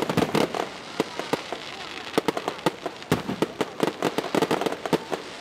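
Aerial fireworks going off in quick, irregular bangs and crackles, thickest near the start and again from about two seconds in.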